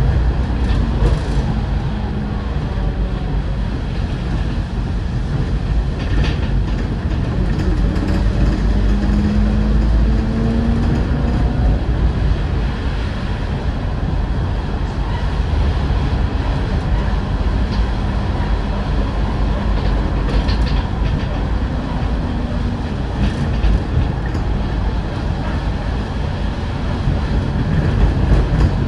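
Cabin of an Optare Solo SR single-deck bus under way: steady diesel engine drone and road rumble, the engine note rising and falling a little, with occasional rattles and clicks from the interior.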